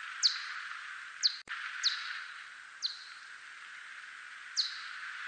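Steppe whiskered bat (Myotis aurascens) echolocation calls: five short, steeply falling chirps at uneven intervals over a steady hiss, with a single sharp click about a second and a half in.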